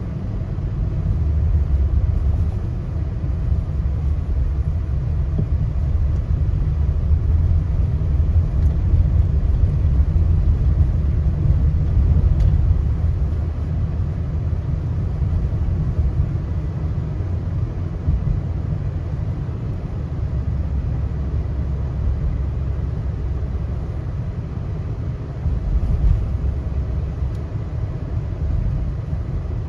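Steady low rumble of a moving car's road and engine noise.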